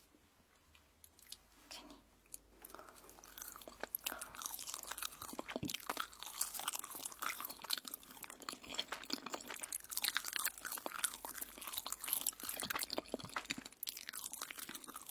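Crunchy biting and chewing of toast, sparse and faint at first, then dense and crackly from about four seconds in.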